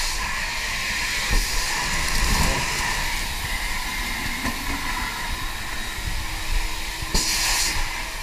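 Steady hissing noise with a few light knocks, and a brief louder hiss about seven seconds in.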